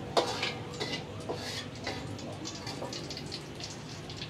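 Food frying in hot oil in a wok, a steady sizzle with many small crackles, and a sharp tap just after the start as the metal spatula strikes the wok.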